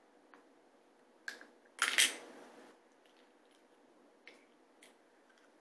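Small glass perfume bottles handled in a wicker basket: a click, then a louder knock and rattle of glass about two seconds in, and a few light taps later.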